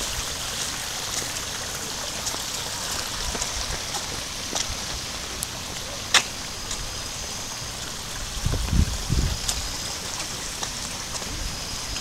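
Shallow brook steadily trickling and splashing over a small step weir. A sharp click about six seconds in, and a short low rumble on the microphone about three seconds later.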